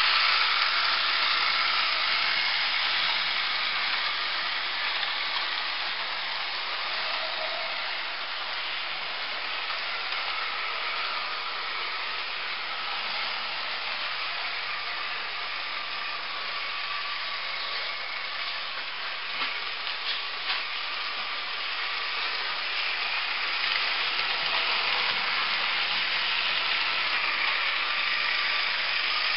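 Model trains running on a layout's track: a steady hiss of wheels on rail with a faint electric-motor whine, a little louder at the start and again near the end, with a few light clicks along the way.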